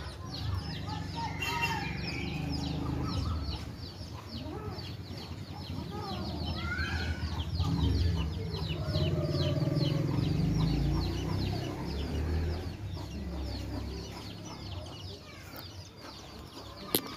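Chickens clucking, over a rapid high-pitched chirping repeated several times a second through most of the clip. A sharp click comes right at the end.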